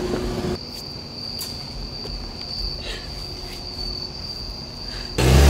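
Crickets trilling steadily in a continuous high note. Near the end, a car engine suddenly revs loudly and rises in pitch as the car pulls away.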